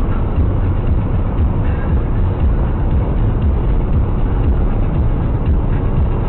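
Steady, loud, dull rumble of a vehicle on the move: engine and road noise heard from inside, with no distinct events.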